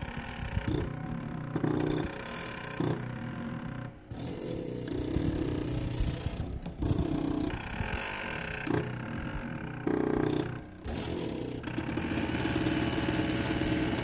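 Stepper motors of a homemade CNC pencil plotter built from salvaged CD-ROM drive mechanisms, buzzing and whining as they drive the pencil across the paper. The sound comes in short runs of a second or so, each at its own pitch, with brief pauses between moves.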